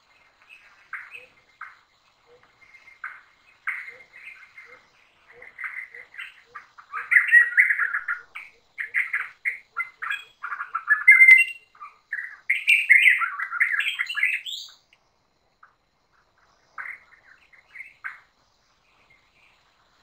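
Rainforest birds calling, a mix of chirps and whistles that thickens in the middle. Under them runs a series of short low notes that quickens and fades away.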